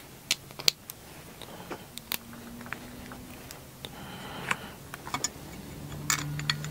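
Small metal screws and printer-kit parts being handled and fitted with a screwdriver: scattered light clicks and taps, a few sharper ones, over a faint low hum.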